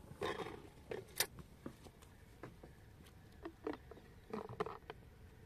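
Light handling noises: scattered sharp clicks and taps, with a short rustle near the start and another about four and a half seconds in, as a plastic thermos jug is handled.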